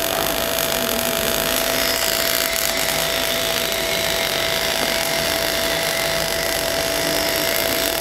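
MIG/MAG welding arc running steadily on a pipe root pass, a continuous even hiss with a steady hum underneath. The power is turned down and the torch is weaved slightly to fill a wide root gap.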